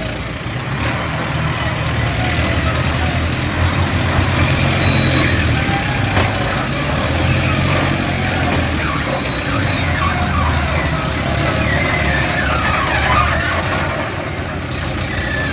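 Heavy diesel engines running steadily, from a loaded lorry bogged in mud and the mobile crane standing by to haul it out.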